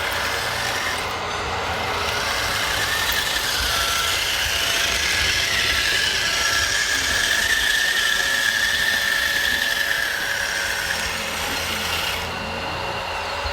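Whine of a radio-controlled model machine's small electric drive, rising in pitch and level, holding, then easing off again, over steady mechanical noise.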